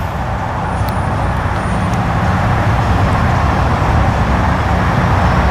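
Amtrak P42 diesel locomotives running as a passenger train rolls slowly toward the listener, a steady low rumble that grows a little louder.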